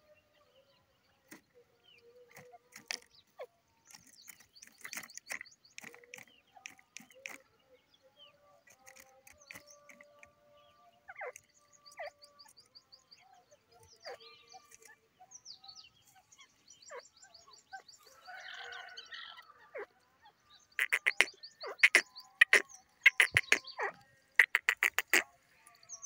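Grey francolin calling at close range: scattered soft notes and faint high chirps, then from about three-quarters of the way through a loud run of sharp, rapidly repeated notes, the loudest part.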